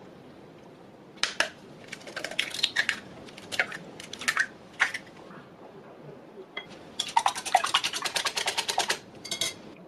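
A metal utensil clinking against a bowl: scattered knocks, then about two seconds of rapid, even strokes, about ten a second, as eggs are beaten for an omelette.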